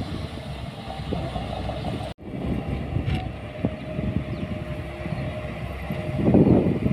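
Diesel engine of heavy earthmoving machinery running steadily, with a louder surge shortly before the end. The sound cuts out for an instant about two seconds in.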